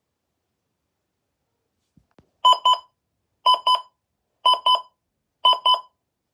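Midland WR-120 weather radio alarm tone: pairs of short electronic beeps repeating about once a second, starting about two and a half seconds in. Two faint clicks come just before the first beeps.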